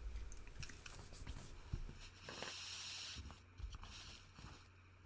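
Faint handling of small plastic mechanical-keyboard switch parts: light scattered clicks and a short rustle about two seconds in.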